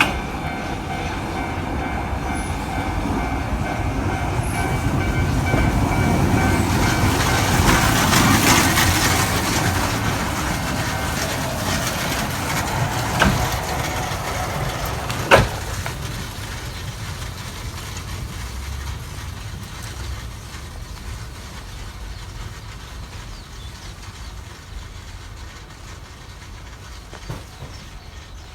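Funicular cable car passing over a level crossing: the rumble of its wheels on the rails grows to a peak about eight seconds in, then slowly fades. Steady ringing tones sound over it in the first third and die away, and two sharp clanks follow a few seconds after the peak.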